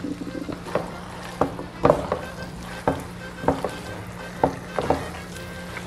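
A spoon stirring pasta with cheese in a frying pan, knocking irregularly against the pan about twice a second, over a low sizzle from the hot pan.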